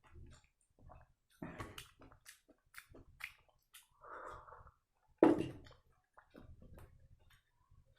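Close-miked eating sounds of sambar vada: scattered wet chewing and mouth clicks, a short rushing sound about four seconds in, and one louder knock just after five seconds.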